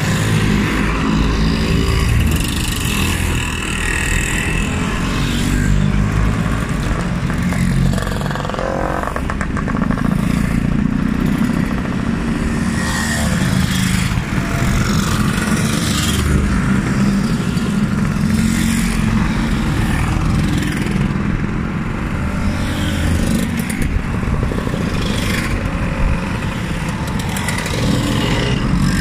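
A procession of classic scooters, Lambrettas and Vespas, riding past one after another. Their small two-stroke engines make a continuous buzzing that swells and dips as each scooter goes by.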